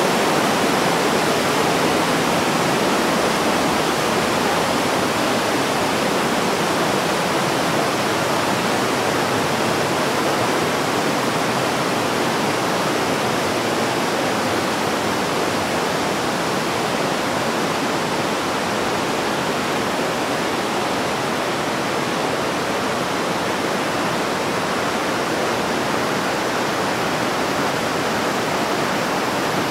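Fast mountain river rushing over boulders and rapids: a steady, even rush of water.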